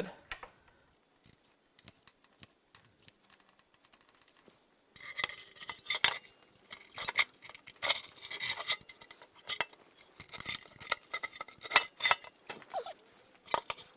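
Sharp, irregular metal clicks and clinks of hand tools on the reverse-threaded fastener of the oil pump's drive gear. A few faint ticks come first, and the clinking starts in earnest about five seconds in.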